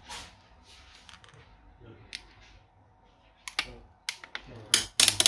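Small clicks and taps from hands handling the opened phone's internal parts and a thin clear plastic film, with a quick run of sharp clicks in the last second and a half.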